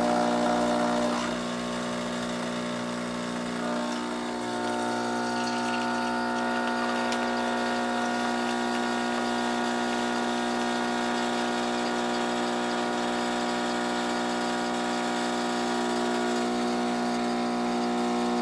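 Barsetto espresso machine's 15-bar pump running steadily while brewing espresso, a constant pitched buzz. It eases slightly in loudness about a second in.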